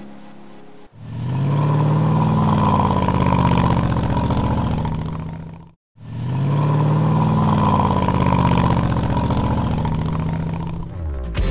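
A vehicle engine revving in two runs of about five seconds each, cut off sharply between them, its pitch climbing and then easing back within each run.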